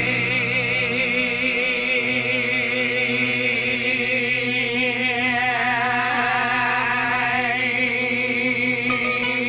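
Rock ballad: a male lead singer holds one long wavering note over a sustained band backing.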